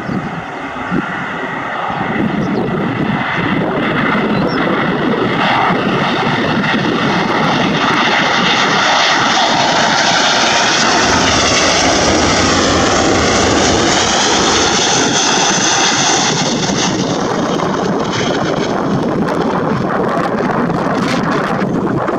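Boeing 777-200 twin-engine jet airliner passing close by. The engine noise builds over the first few seconds, then holds loud and steady, with a sweeping, wavering whine in the middle as the aircraft goes past.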